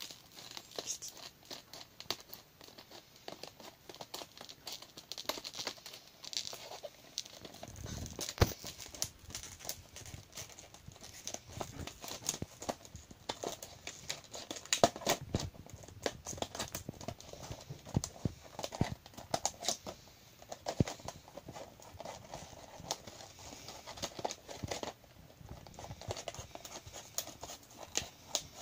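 Scissors cutting through a stiff clear plastic blister pack, many irregular sharp snips, with the plastic crackling and crinkling as it is cut and bent.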